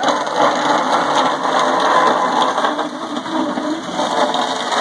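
Steady, loud engine-like machine running noise.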